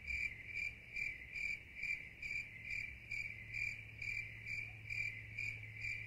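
An insect chirping in a steady, even pulse, about two to three chirps a second, over a faint low steady hum.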